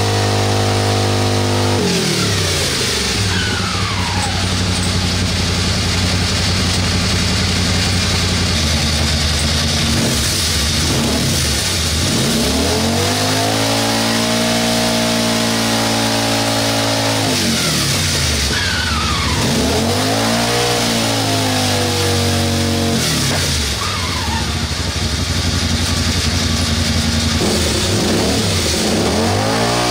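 Suzuki SV650 V-twin engine of a mini rock crawler running in gear, driving its wheels, which spin freely off the ground. The engine is revved up and down several times.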